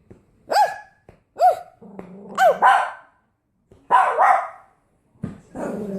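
A dog barking during a play-fight: three short, sharp barks about a second apart, then rougher, growly barks.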